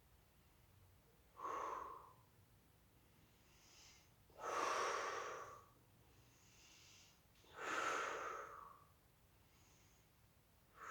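A woman breathing deeply and slowly while holding a yoga pose. There are three loud, breathy exhales or inhales about three seconds apart, with fainter breaths between them.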